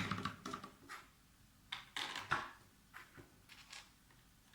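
Plastic keycaps clicking and snapping as they are pushed onto a mechanical keyboard's switches and stabilizers: a few scattered light clicks and taps, the loudest a little after two seconds in.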